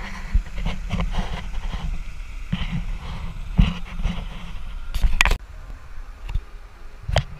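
Wind buffeting an action camera's microphone, an uneven low rumble, with a few sharp knocks: one midway, two close together about five seconds in, and one near the end. The rumble drops to a quieter level after the pair of knocks.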